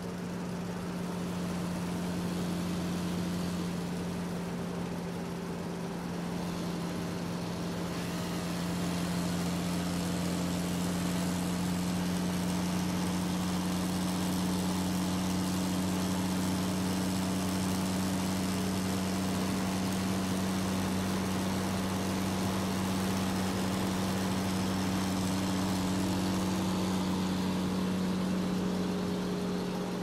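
Forestry harvester's engine running steadily with an even low hum, getting a little louder about eight seconds in.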